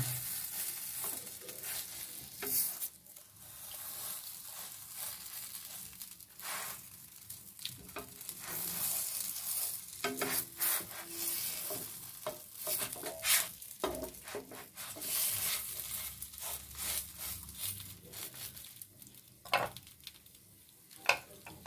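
A thin vegetable-filled crepe sizzling lightly in an oiled non-stick frying pan, with a spatula scraping and tapping the pan in short, irregular strokes as the crepe is rolled up.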